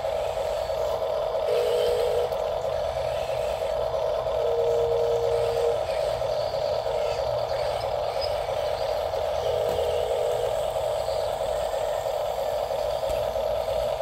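Small electric drive motors of radio-controlled toy construction models, a bulldozer and a dump truck, whining steadily as they run. A second, slightly lower whine cuts in for about a second three times.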